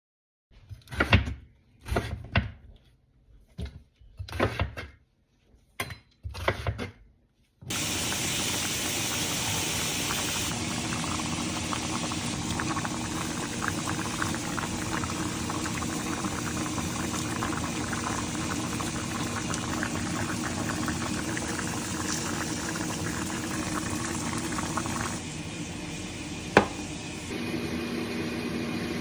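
A handful of short knocks and clatters, then, from about eight seconds in, a pot of liquid on the stove bubbling steadily, with one sharp click near the end.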